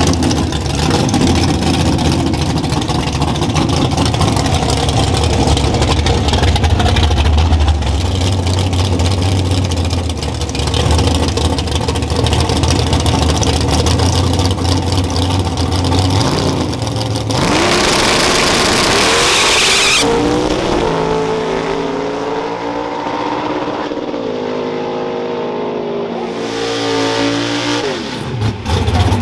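Drag car engine running loud and steady at the starting line. About 17 seconds in, a sudden loud launch; the engine then climbs in pitch and drops back several times as it shifts up through the gears going down the track.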